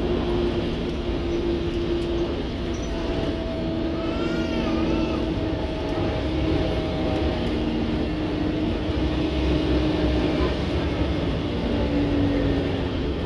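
Scania N230UD OmniCity bus heard from on board while driving: a steady engine and drivetrain drone over road rumble, its held tones shifting pitch a few times as the bus changes speed. A brief wavering higher sound rises and falls about four seconds in.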